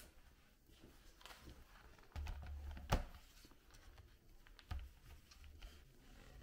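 Quiet indoor handling sounds: a few soft low thumps and scattered light clicks, the sharpest click about three seconds in.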